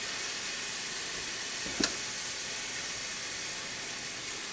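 Cubed ham and bacon frying in butter in a hot pan, a steady sizzle. One short, sharp click about two seconds in.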